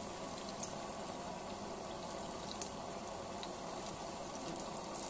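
Tomato vada fritters deep-frying in hot coconut oil: a steady bubbling sizzle with scattered small pops.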